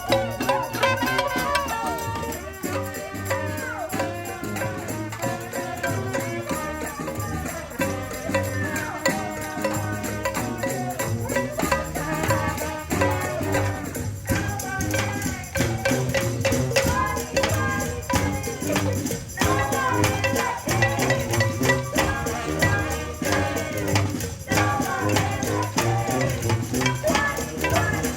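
Music with hand percussion: a shaker or rattle and drums keeping a steady beat under pitched melodic lines.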